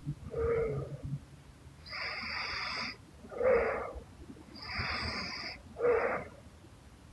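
A sleeping woman snoring lightly. Slow breaths come about every three seconds, each a hissing breath of about a second followed by a shorter, louder snort.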